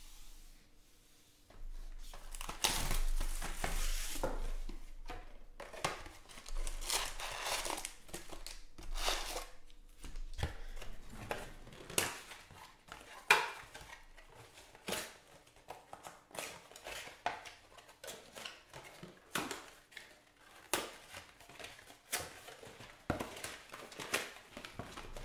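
Foil trading-card pack wrappers crinkling and tearing. After a quiet first second or two comes a dense run of crackles and rustles, then scattered sharp crackles and clicks.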